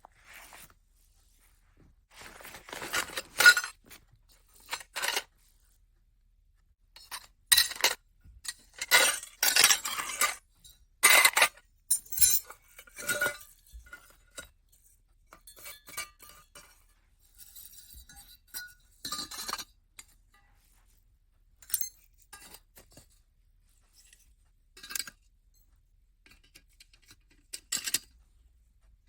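Metal parts of a small folding camp stove clinking and clanking as they are handled and rearranged, in irregular clusters with short pauses between.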